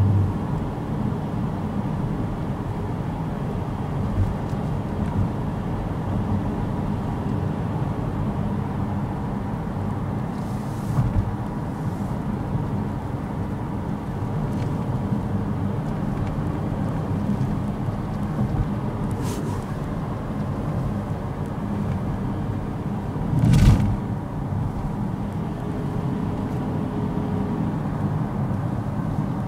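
Steady engine and tyre rumble inside the cabin of a moving Honda CR-V, with a short thump about three-quarters of the way through.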